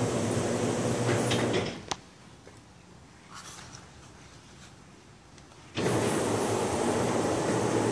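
Electric tubular motors of motorized zipper-track roller screens running with a steady hum and a faint high whine. The motors stop about two seconds in with a click, then start again suddenly near six seconds.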